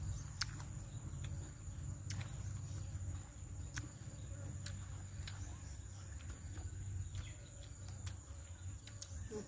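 Quiet chewing with scattered sharp mouth clicks and smacks, over a steady high-pitched insect drone and a low background rumble.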